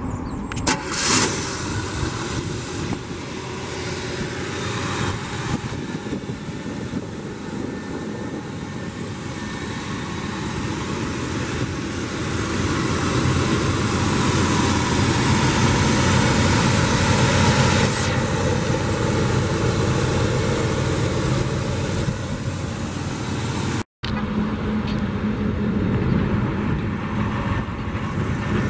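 Chevrolet 283 small-block V8 running steadily, heard from beside the open engine bay, getting louder through the middle.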